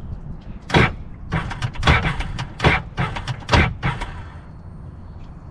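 Starter of a 2005 Sea-Doo GTX jerking against an engine that will not turn over, a string of short sharp clunks about two a second, then a lull near the end. The sound is "terrifying": the engine is locked, which the owner later takes for hydrolock from water in the cylinders.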